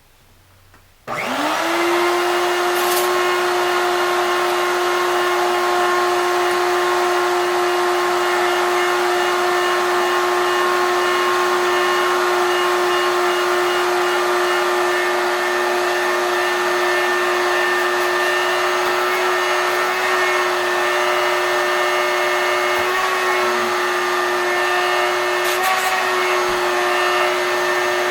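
Shop vac switched on about a second in: its motor spins up with a quick rising whine, then runs steadily at full speed, with a couple of faint clicks as it works.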